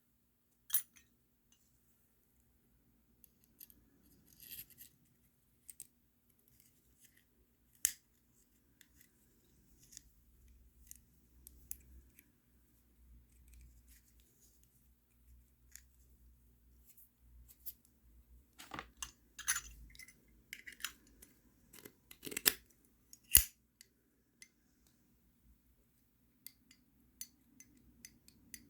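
Zippo windproof lighter being handled: scattered sharp metallic clicks and light scrapes of the case, hinged lid and insert, with a busier run of clicks about two-thirds of the way in.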